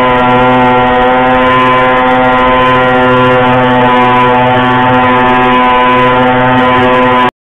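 Motorboat engine running steadily at an even pitch, cutting off abruptly near the end.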